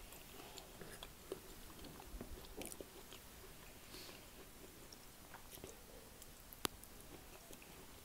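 Faint, close-miked chewing and mouth sounds of a person eating a roast dinner, with small scattered clicks and one sharper click about two-thirds of the way through.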